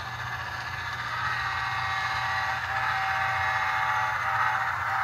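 HO-scale model locomotive's LokSound V5 sound decoder playing a diesel engine sound through its small speaker, steady and getting louder about a second in as the model runs toward the microphone, over a low steady hum.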